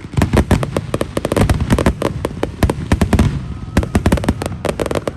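Fireworks going off in a dense barrage: many sharp bangs and cracks in quick, overlapping succession, thinning briefly about three seconds in before picking up again.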